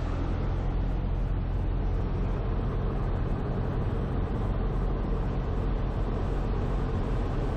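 Cessna 172M's four-cylinder Lycoming O-320 engine and propeller running steadily at approach power, a continuous drone with a low hum.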